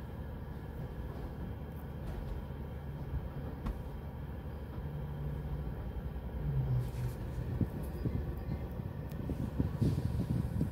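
Sonny's car wash tunnel heard from inside a car's cabin: a steady low rumble as the conveyor pulls the car through. In the second half it grows louder, and near the end water spray starts hitting the car with irregular low thumps.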